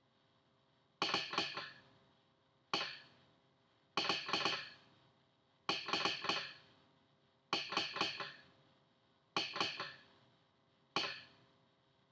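Arduino-driven telegraph sounder clicking out Morse code in seven short clusters of sharp clicks, each with a brief metallic ring, one cluster every second and a half or so. Each cluster is one letter, and together they spell "Welcome".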